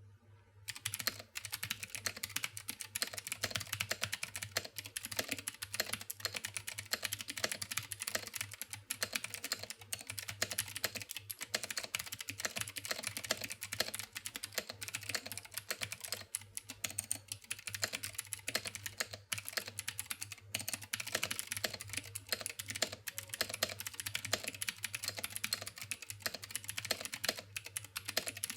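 Fast continuous typing on a Womier K66 mechanical keyboard with clicky Cherry MX Blue switches, a dense run of key clicks that starts about a second in.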